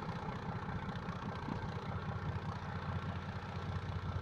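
Shamrock 31's Iveco diesel engines idling as the boat moves slowly: a steady low drone.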